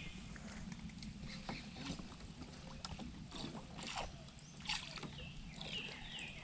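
Scattered light knocks and clicks of gear being handled in a small fishing boat, over a steady low hum.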